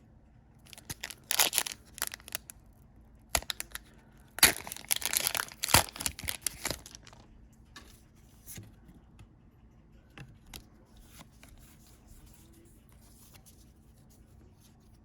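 Foil wrapper of a Pokémon trading-card booster pack being torn open in several crinkly rips, loudest about halfway through, followed by fainter rustling and light taps as the cards are handled.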